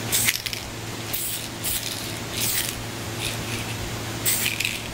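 Aerosol spray-paint can sprayed in about five short hissing bursts, a second or so apart, with a steady low hum underneath.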